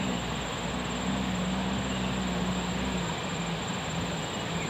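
Off-road jeep's engine running under load, its note rising and falling with the revs over a rumble of tyres and road noise.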